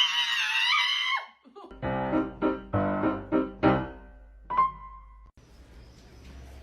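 A high, wavering pitched cry, then a run of about seven piano notes struck one after another and each fading, then a short held tone. After that comes faint background noise.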